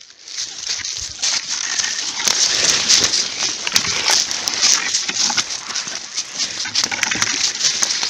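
Footsteps crunching and rustling through dry fallen leaves on the forest floor, a continuous crackling shuffle that starts about half a second in.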